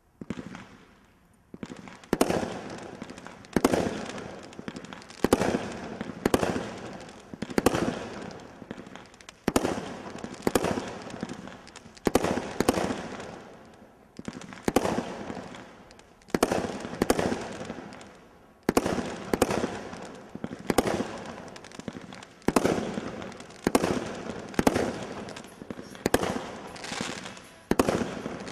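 40-shot mixed-effects firework cake firing shot after shot, about one a second, each a sharp bang that trails off before the next.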